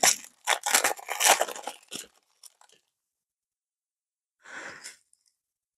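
Foil wrapper of a 2022 Donruss Football trading-card pack being torn open, with a run of crinkling tears that stops after about three seconds, then one short crinkle near the end.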